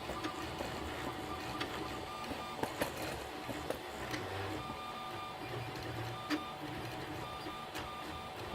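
Desktop FDM 3D printer running mid-print: its stepper motors give a steady whine and a buzz that shifts as the print head moves, with scattered small clicks.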